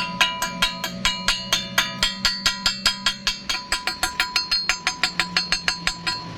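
A hammer tapping rapidly on steel, about four to five strikes a second, each strike ringing with a metallic tone; the sound of chipping or knocking on a welded steel piece.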